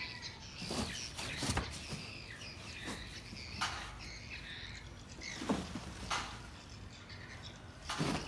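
Small birds chirping in the background, with about seven short knocks at irregular intervals, a second or so apart.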